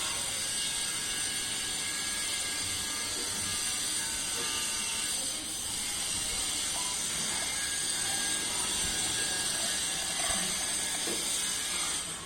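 Bench drill press spinning a square stainless steel bar while a cutting tool scrapes metal off it: a steady, high-pitched metal-cutting scrape over the drill's motor.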